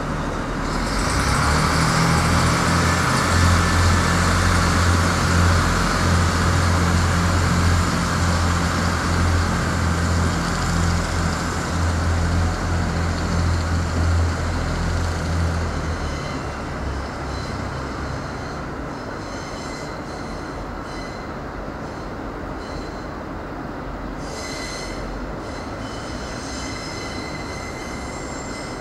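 Irish Rail 29000 class diesel multiple unit departing: its underfloor diesel engines rise to a loud low drone about a second in and hold for some fifteen seconds, then ease off. In the quieter second half, high-pitched wheel squeal comes and goes as the train runs over the curved track.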